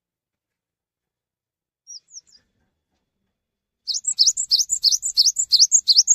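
Cinereous tit (gelatik batu) singing: a few faint high chirps, then, about four seconds in, a fast run of repeated high two-part notes, about four a second.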